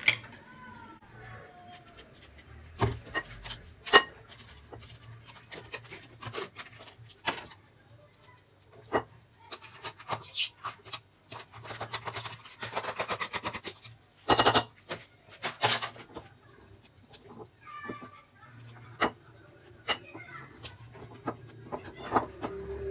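A spoon scraping and tapping soft cheese out of a tub into a ceramic bowl, then a whisk stirring it into the cream. Irregular clinks and knocks of utensils on the tub and bowl, with a few sharper knocks about two-thirds of the way through.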